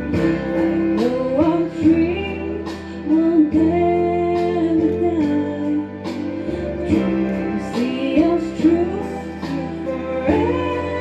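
A woman singing solo into a microphone through a PA system, holding long notes with gliding pitch, over a steady instrumental accompaniment.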